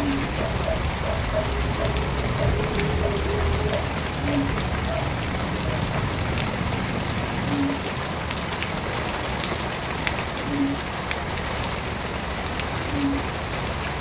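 Shallow stream water running over stones and leaf litter: a steady splashing trickle with fine droplet clicks.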